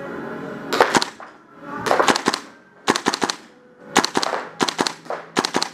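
KWA LM4 PTR gas blowback airsoft rifle firing about six short, rapid strings of sharp shots, loud and echoing, starting about a second in.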